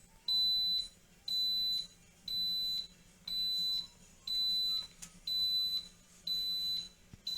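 Electronic buzzer of a powered-up Omron interactive display beeping: a high, steady beep about half a second long, repeating about once a second.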